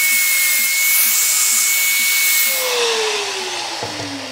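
Handheld angle grinder running at full speed with a high steady whine and a hiss as its disc cuts a stainless steel strip. About two and a half seconds in it is switched off and winds down with a falling pitch, and near the end it is set down on the table with a knock.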